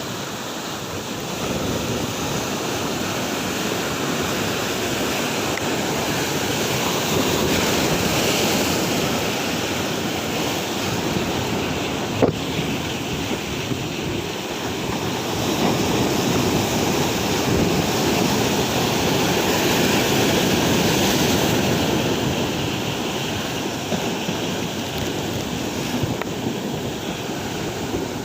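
Heavy surf from a rough sea washing in, with wind blowing on the microphone; the wash swells and fades over several seconds at a time. One sharp click about twelve seconds in.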